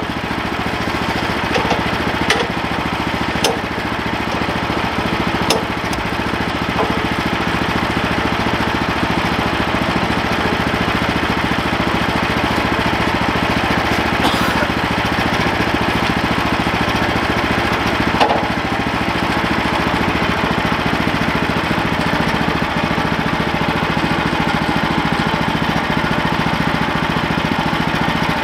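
Portable band sawmill's engine idling steadily without cutting, with a few sharp knocks in the first several seconds and another about 18 seconds in as the log is shifted on the mill bed.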